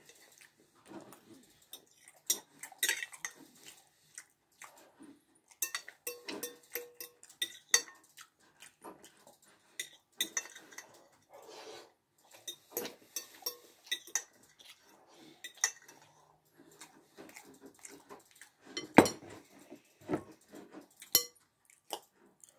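Eating noises close up: a spoon clinking and scraping against a glass bowl, with mouth sounds of eating and drinking from the bowl. A sharp knock about nineteen seconds in, the loudest sound, is a bowl set down on the table.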